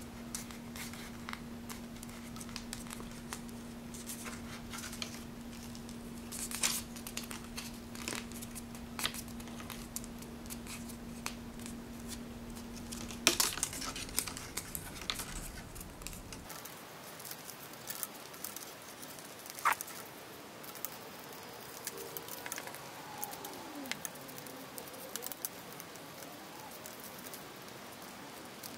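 Cardstock paper crinkling and crackling in short, irregular bursts as a narrow strip is rolled and folded back by hand. A faint steady hum runs under it and stops about halfway through.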